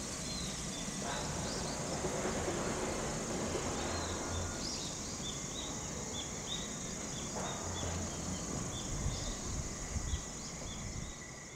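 Outdoor insect chorus: a steady high-pitched drone of insects, with many short chirps repeating over it and a faint low rumble underneath; it fades out near the end.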